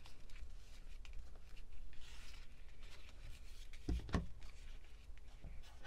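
Quiet handling of paper and cord on a craft mat: a faint rustle about two seconds in, then two soft thumps in quick succession about four seconds in, over a low room hum.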